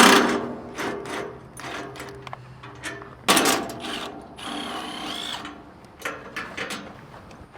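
Power tool, most likely an impact wrench, running in short bursts with rapid clicking as 17 mm bolts holding the roll cage are spun out.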